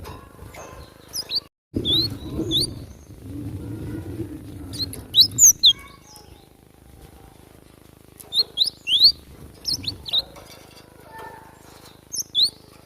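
Cinereous tit (glatik batu) calling: short, sharp rising chirps in clusters of several, with pauses of a few seconds between clusters. A low rumbling noise sits under the calls in the first few seconds.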